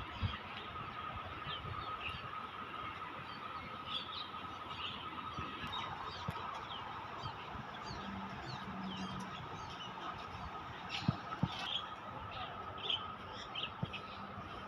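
Birds chirping, many short quick calls scattered throughout, over a steady background with a constant high tone.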